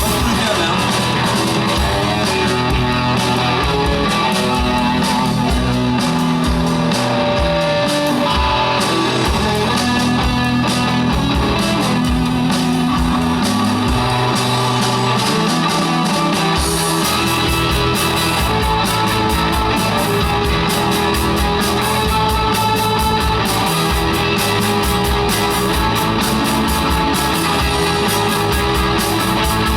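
Live rock band playing an instrumental stretch of a song with electric guitar, bass and a steady drum beat, with no vocals.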